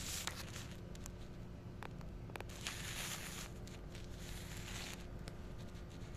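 Quiet room tone with a steady low hum and a faint steady tone. It is broken by a few soft clicks and by two brief stretches of hissy rustling, about halfway through and again near the two-thirds mark.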